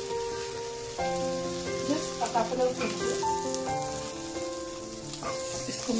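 Chopped onion, green capsicum and garlic sizzling in oil in a frying pan, a steady hiss, under background music with long held notes.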